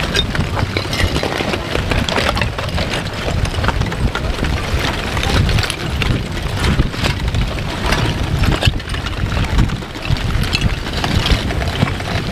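Advancing lava flow front crackling and clinking as pieces of its cooled, glassy crust break and tumble, over a steady low rumble.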